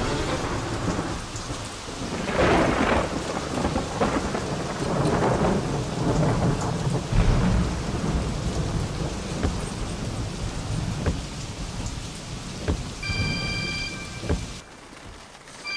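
Heavy rain with rolling rumbles of thunder. Near the end the storm cuts off and a phone's electronic ringtone sounds briefly.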